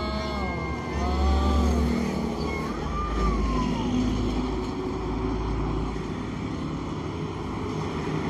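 A car-carrier truck drives past with a low engine rumble, heaviest in the first half, followed by motorcycles passing on the road. A few short gliding tones sound over it during the first four seconds.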